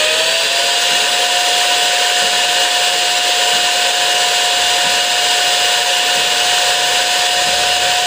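The suction motor of a Bolde Smart Hoover Aquaman wet-and-dry floor cleaner, running just after switch-on. Its rising whine levels off within the first half second, then holds at a steady high pitch over a loud rush of air.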